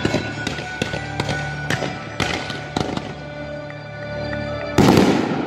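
Fireworks shells bursting with a quick series of sharp bangs, several a second, over the show's music soundtrack, then one loud, longer blast near the end.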